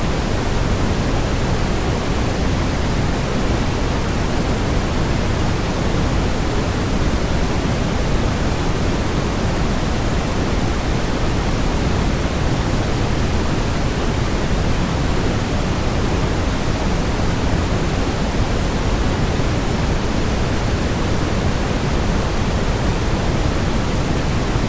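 Waterfall white noise: a steady, unbroken rush, heavier in the low end and unchanging throughout.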